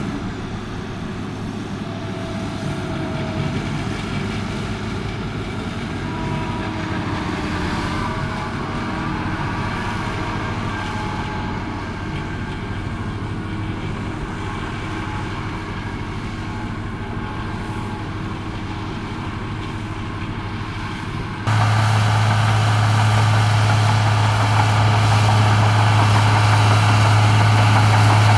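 Komatsu bulldozer's diesel engine running steadily with a low hum. About three quarters of the way through it suddenly becomes louder and harsher.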